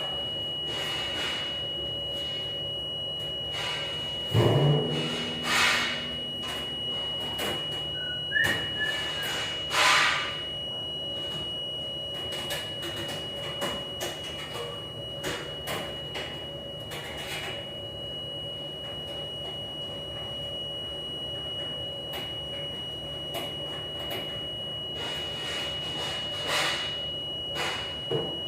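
Steady hum of galley machinery with a constant high-pitched whine, broken by a few loud clatters about four to ten seconds in and once more near the end.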